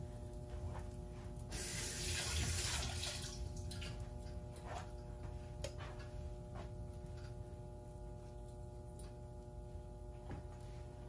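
A short rushing hiss, lasting under two seconds, about a second and a half in, over a steady low hum, with scattered light clicks and knocks of kitchen work.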